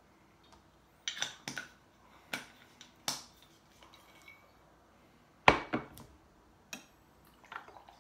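Sharp clicks and knocks from a gin bottle being handled, stoppered and set down on the table, about seven in all. The loudest knock comes about five and a half seconds in.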